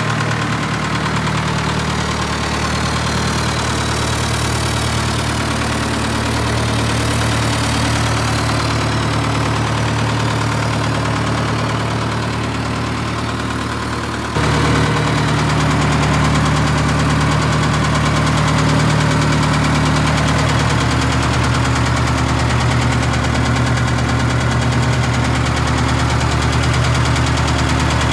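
Heden 840 forklift engine idling steadily, with a knocking edge; it gets suddenly louder about halfway through.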